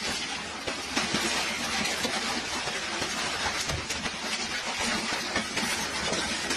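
Heavy hailstorm: hailstones and rain pelting down in a dense, steady din, with many sharp individual hits.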